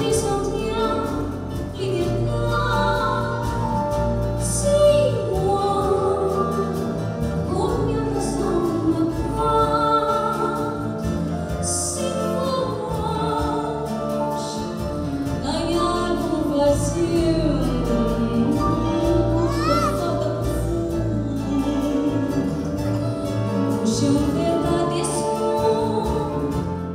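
A woman singing live into a microphone, holding long notes with vibrato, over an acoustic band of guitars, keyboard and hand percussion.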